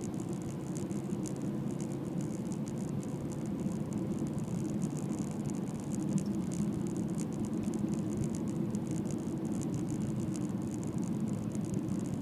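Steady road and engine noise inside a moving car's cabin, with a light, constant rattle over it.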